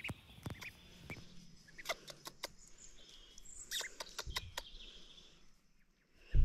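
Sparse, irregular crackles from a wood campfire, with faint bird chirps in the background and one heavy thump at the very end.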